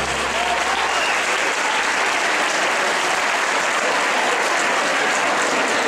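Audience applauding steadily. The last note of the music dies away in the first second or so.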